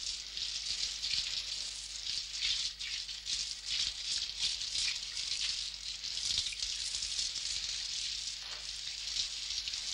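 Shower water spraying from a handheld shower head onto skin and tile: a steady, slightly uneven hiss.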